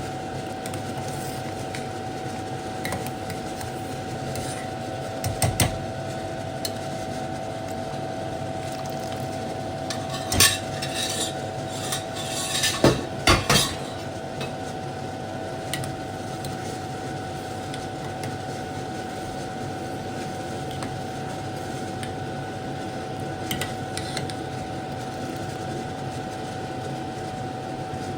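A metal spoon clinking and scraping against a cooking pot during stirring: a few scattered knocks, with a louder cluster about halfway through, over a steady hum with a faint constant tone.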